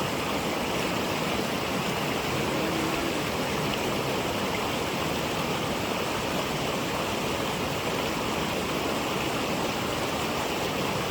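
Water of a small waterfall rushing steadily, an even, unbroken wash of sound.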